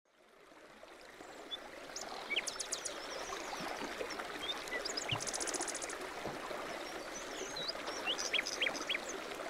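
Running water with small birds chirping and calling over it, fading in over the first two seconds; one bird gives a fast trill about five seconds in.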